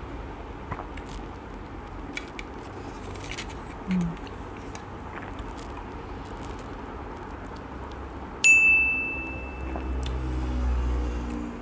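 Quiet eating sounds from a wooden spoon and yogurt, faint scattered clicks. About eight and a half seconds in, a single bright ding sound effect rings out and fades, marking an on-screen rating. A low hum follows near the end.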